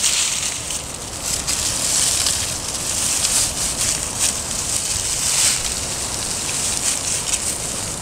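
Dry straw rustling and crunching in irregular crackles as a straw bale is tipped end over end and dragged across a straw-mulched bed.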